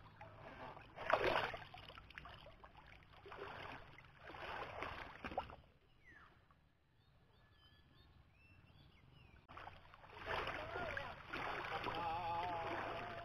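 Water sloshing and splashing in bursts as someone wades through a river, heard close to the water's surface, with a quieter stretch in the middle.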